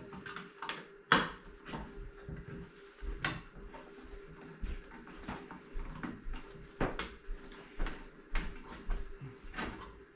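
Irregular knocks, clicks and clatter of objects being handled and set down, the sharpest knock about a second in, over a faint steady hum.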